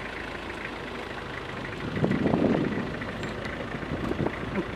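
Vehicle engine running steadily, with a brief louder patch about two seconds in.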